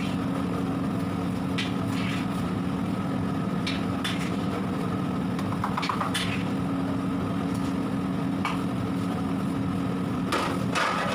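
A steady low mechanical hum with a few short clicks and knocks, more of them near the end.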